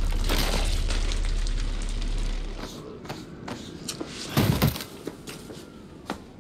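A deep rumbling drone that fades out about two and a half seconds in, then a single heavy thud a little past the middle, with a few faint clicks around it.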